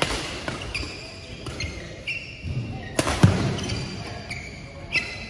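Badminton rally: sharp smacks of rackets hitting the shuttlecock, three hard hits about two seconds apart, with short high squeaks of court shoes on the floor between them.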